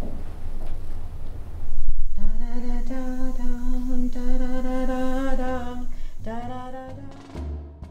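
A person humming one long held note, starting about two seconds in, then a shorter note that slides up near the end.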